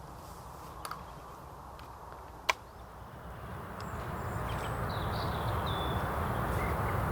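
Wind rising into a steady rush, with one sharp click about two and a half seconds in, a couple of fainter clicks before it, and a bird's short high chirps in the second half.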